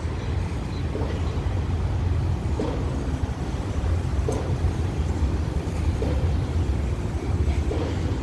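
DD51 twin-engine diesel-hydraulic locomotive running as it approaches hauling a ballast train, giving a steady low engine drone that grows slightly louder.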